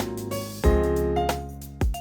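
Background music: light piano or keyboard tune over a steady bass beat.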